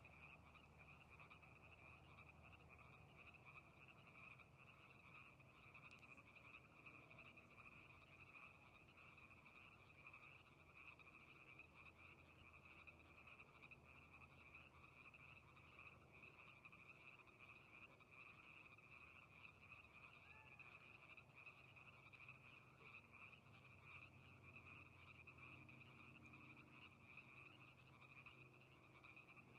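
Faint chorus of many frogs calling at once, a steady dense trilling mass with no pauses.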